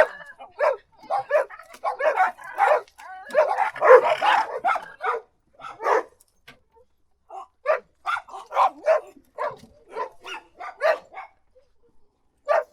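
Dog barking repeatedly in runs of short, sharp barks, densest about four seconds in, with a pause of about a second midway before the barking resumes.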